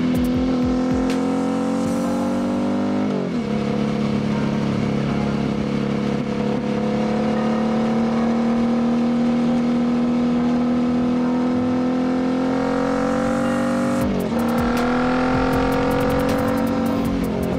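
2019 Royal Enfield Continental GT 650's parallel-twin engine through a Diablo full exhaust, pulling under steady acceleration. It shifts up twice, about three seconds in and about fourteen seconds in. Each time the pitch drops sharply, then climbs slowly again.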